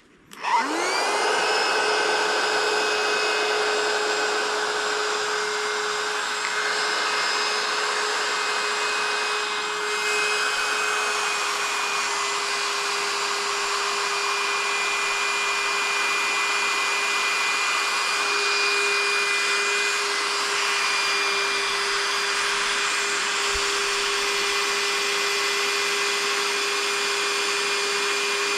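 A small electric motor, like a blower or air pump, switching on and spinning up to speed in under a second, then running steadily with a constant whine and rushing air.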